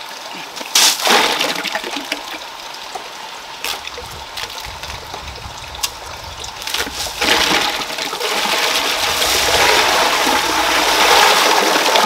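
Water gushing and splashing, with a couple of sharp knocks about a second in; the rush grows louder from about seven seconds in.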